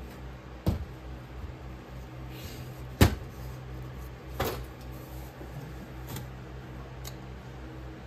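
Sand-packed metal mold flask halves set down and handled on a stainless steel table: a few sharp knocks, the loudest about three seconds in, over a steady low hum.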